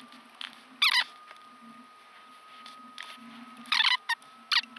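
A man's voice played back sped up, so his mumbling comes out as short bursts of high-pitched, chipmunk-like chatter, over a steady low hum.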